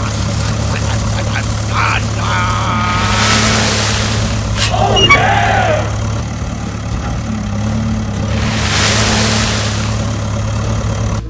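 Heavy truck engine running steadily, with two long hissing swells like air brakes, about three seconds in and again near the end.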